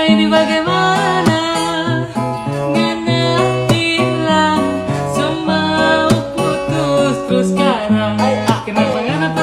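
Music: a song with plucked guitar over a stepping bass line.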